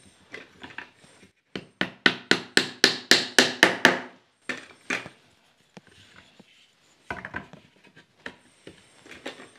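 Wooden mallet tapping the slats of a wooden lattice window together into their joints during a dry fit: a quick run of about ten sharp wooden knocks, about four a second, then two more and a few lighter taps and clicks of the slats being handled.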